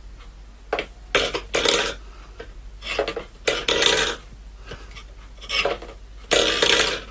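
A run of short, irregular scraping or clattering noises, about eight in a row, like things being knocked or scraped about.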